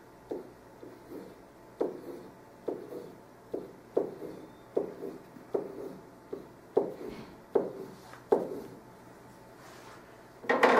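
A pen writing on a whiteboard: a dozen or so short, quick strokes at a steady pace as a long row of zeros and commas is written, easing off near the end.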